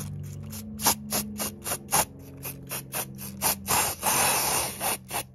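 Aerosol lace-tint spray can hissing in about a dozen short spurts, then one longer spray of about a second near the end, as tint goes onto a wig's hair and lace.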